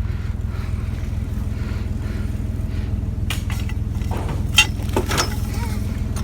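Pickup truck engine idling with a steady low rumble, with a few sharp clanks of scrap metal being handled in the second half.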